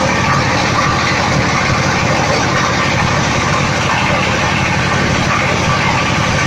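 Mustard oil expeller press running under load while crushing seed, a loud, steady mechanical din with a fast, even pulse that does not change.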